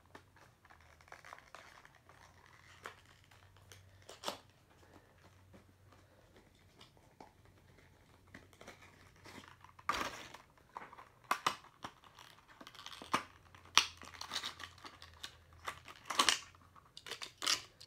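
Diecast car packaging being opened by hand: scattered crinkling, tearing and clicks, sparse at first and busier in the second half.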